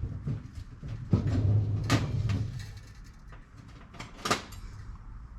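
Handling knocks and small clicks of tools and metal tuner hardware while locking tuners are fitted to a guitar headstock. There is a dull bump about a second in, and sharp clicks near two and four seconds.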